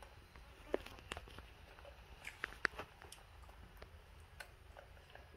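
Faint, scattered clicks and light taps of pet monkeys handling and eating snack food, the sharpest pair about two and a half seconds in.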